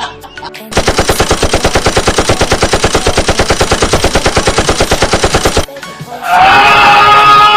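Meme sound effect of a machine gun firing one long rapid burst, about ten shots a second for about five seconds, cutting off suddenly. Near the end a loud held high-pitched cry or tone begins.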